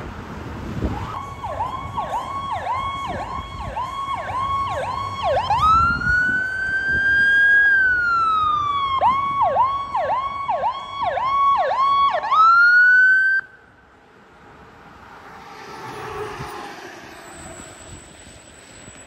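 Ambulance electronic siren: a pulsing tone dipping about twice a second, switching to one slow rising-and-falling wail and then back to the fast pulse. It cuts off abruptly about two-thirds of the way in, leaving faint road noise.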